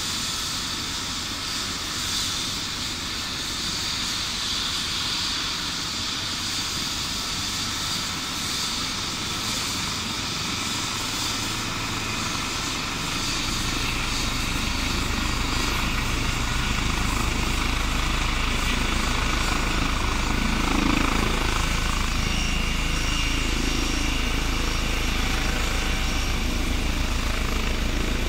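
Eurocopter EC135 P2 (H135) helicopter's twin turboshaft engines whining steadily on the ground as the main rotor spins up. About 14 seconds in, the deep beat of the rotor comes in and the sound grows louder.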